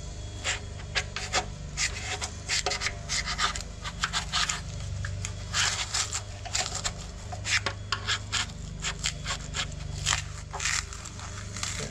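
Screwdriver scraping and digging foam insulation out of the anode rod port on a water heater's top, in short, irregular scratchy strokes.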